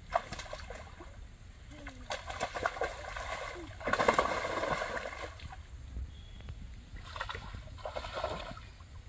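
Muddy shallow water splashing and sloshing as a cast net is hauled through it, in several irregular bursts, the loudest about four seconds in.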